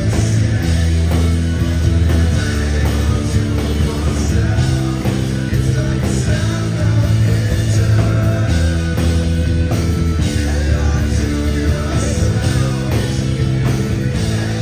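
Rock band playing live, with electric guitars, bass and drums in a dense, loud mix.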